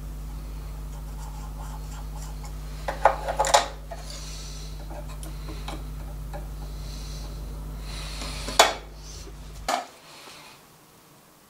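Steel calipers clinking and tapping against a metal ring clamped in a hand press. There is a cluster of light clinks about three seconds in, then two sharp metallic clicks near the end, all over a steady low hum that cuts out shortly before the end.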